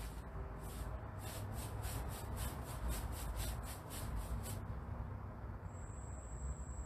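Paintbrush strokes on the dresser's wooden side: a rhythmic scratchy brushing at about three strokes a second that stops about two-thirds of the way through, over a low rumble.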